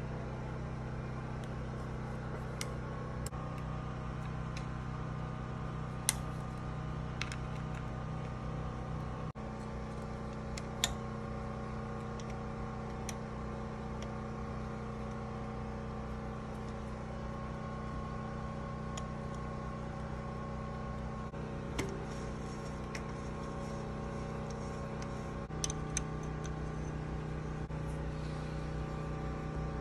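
Steady mechanical hum of a running machine, with a few sharp light clicks and taps now and then from hand tools and bicycle parts being handled.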